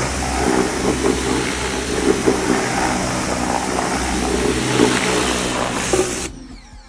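Pressure washer running, its jet hissing steadily against a steel car subframe over the low drone of the machine. The sound cuts off sharply near the end.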